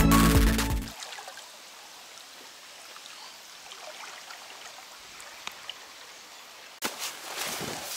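Background music ends about a second in. Then river water trickles and laps faintly around a packraft on the water. Near the end comes a sudden knock, followed by louder rustling noise.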